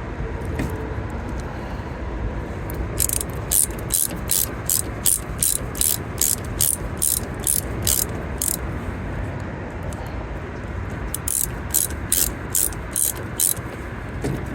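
Hand socket ratchet clicking in a steady rhythm of about two to three clicks a second, in two runs with a short pause between them, as it drives in the bolts holding the tail light. A steady low rumble sits underneath.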